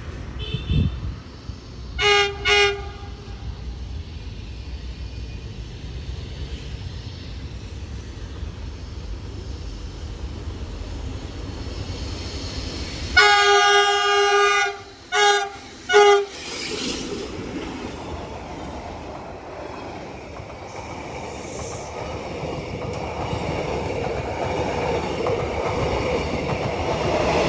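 Two D20E diesel locomotives running together at the head of a train, sounding the horn: two short blasts about two seconds in, then a long blast a little before the middle, followed by two short blasts. Under the horn, engine and wheel noise runs steadily and grows louder toward the end as the train comes closer.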